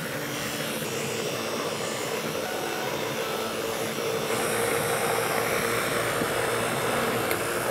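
Handheld immersion blender running steadily in a pot of thick cooked haleem, a constant motor whine with a steady hum, puréeing the lentils and grain smooth.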